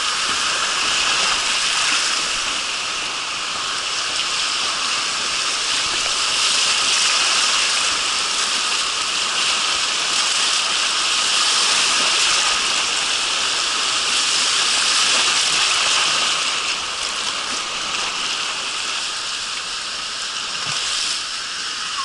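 Fast whitewater rushing and churning around an inner tube on a water-park river slide, a steady loud rush that grows a little quieter over the last few seconds as the water calms.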